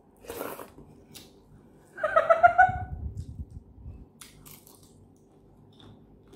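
Eating with the hands: a short slurp near the start, then faint clicks of a cooked prawn being peeled by hand. About two seconds in, the loudest sound is a short, high-pitched, slightly rising call.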